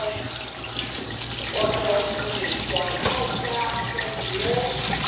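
Kitchen tap running into a stainless steel sink while green beans are rinsed under it. A faint, distant voice comes and goes behind it, from a loudspeaker announcement.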